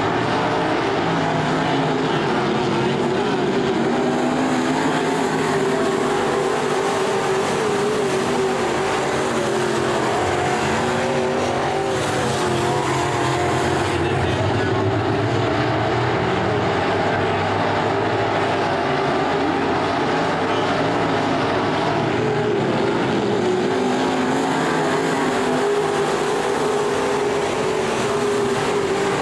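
A pack of IMCA Sport Mod dirt-track race cars running laps together, several engines at speed overlapping in a steady, unbroken drone.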